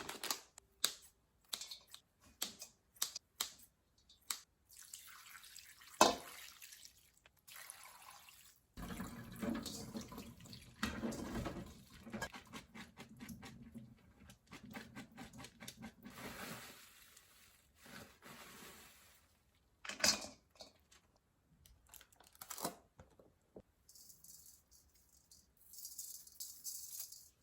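Tap water running into a kitchen sink, with many short clicks and knocks of dishes and utensils being handled.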